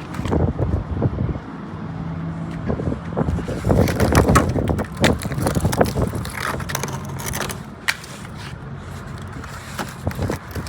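Thick ice crunching and scraping as it is broken and knocked off an iced-over vehicle, in irregular knocks and crunches.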